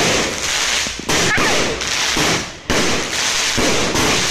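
Ground fountain firework spraying sparks, a loud, dense crackle that starts abruptly and surges anew about a second in and again just before three seconds.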